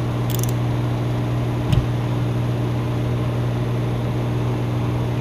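A steady low machine hum with a light hiss over it. A brief soft knock comes a little under two seconds in.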